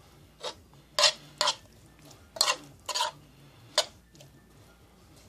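A utensil stirring and scraping through stir-fried chicken and vegetables in a pan, in about six short strokes.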